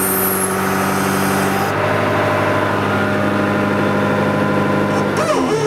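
John Deere 310D backhoe loader's diesel engine running steadily; a little after five seconds in, its pitch drops as the engine slows down.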